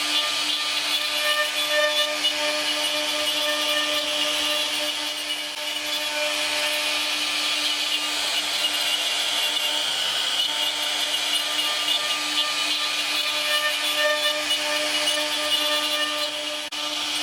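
CNC router spindle running and cutting wood: a steady machine whine over continuous cutting noise, with a brief dip near the end.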